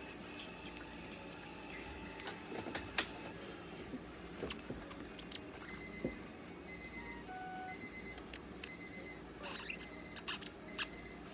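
Short electronic beeps from clinic equipment, repeating roughly once a second from about halfway through, over a steady machine hum. Scattered clicks and rustles come from the cat being handled and its fur wiped with a tissue.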